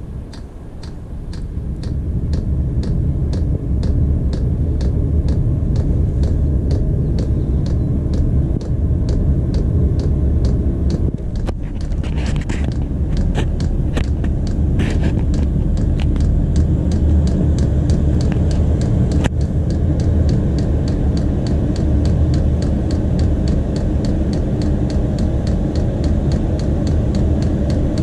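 Chinese diesel air heater starting up and running: a low combustion-fan and burner rumble that builds over the first few seconds and then holds steady, with a regular sharp ticking, about two to three ticks a second, from its fuel dosing pump.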